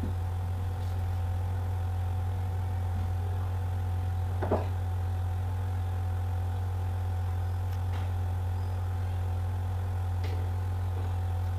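Steady low hum with one soft click about halfway through and a couple of fainter ticks later.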